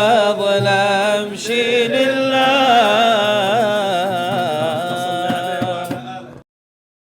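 Male voice singing an Arabic Islamic nasheed in long, ornamented melismatic phrases with a wavering vibrato. It fades briefly and then stops abruptly into silence about six and a half seconds in, ending the piece.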